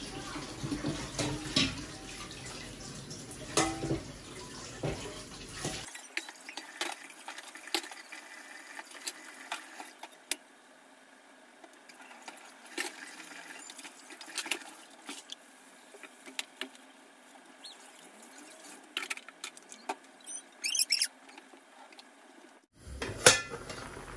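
Dishes being washed in a kitchen sink: tap water running while a steel bowl is scrubbed with a sponge, with scattered clinks of metal and crockery. Near the end, a louder clank as a pot lid is lifted.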